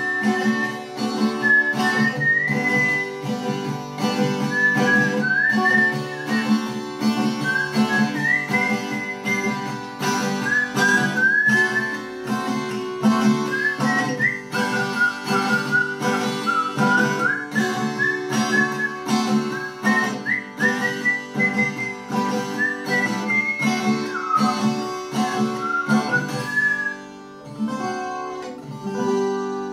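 Whistled melody sliding between notes over a strummed twelve-string acoustic guitar. Near the end the whistling stops and the last chord rings out and fades.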